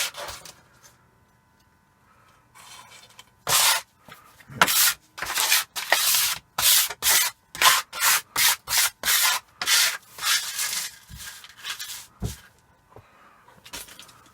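A hand tool scraping or rubbing in a quick back-and-forth rhythm, about two strokes a second, for some seven seconds, then a few fainter strokes.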